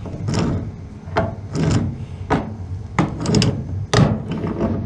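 A string of irregular knocks, clunks and scrapes as a cold-water supply hose is handled and fitted onto a washing machine's water inlet.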